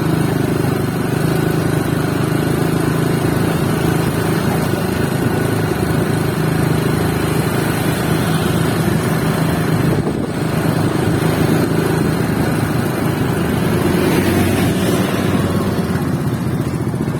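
Steady engine drone running without a break over busy street noise, typical of motorcycle traffic.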